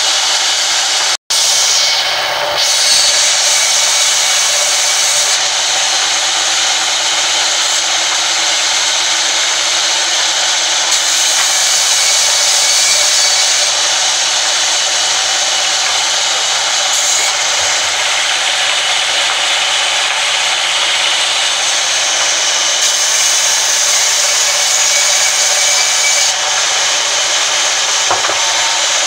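Sawmill band saw running and cutting through a long timber plank, a steady loud sawing noise with a faint steady whine in it. The sound drops out for a split second about a second in.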